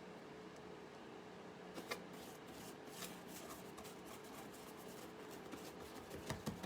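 Faint scratchy rubbing and light taps of a paintbrush working paint onto a puppet's head, over a steady low hum.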